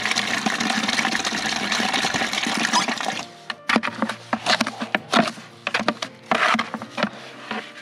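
Water from an outdoor spigot running into a plastic bucket for about three seconds. Then the mortar is stirred in the bucket with a hand shovel: irregular scraping and scooping strokes.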